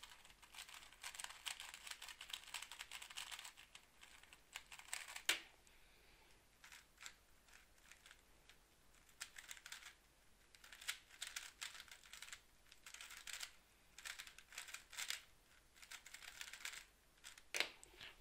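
GAN 356 X magnetic speedcube turned fast through a solve: faint, rapid plastic clicking of the layers in flurries with short pauses, and one sharper click about five seconds in. Near the end there is a louder knock as the solved cube is set down on the table.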